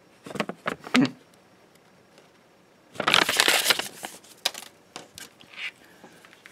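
Paper rustling and crinkling as a printed certificate sheet and a small paper card are handled: a few sharp crackles in the first second, a louder dense crinkle from about three to four seconds in, then scattered light clicks.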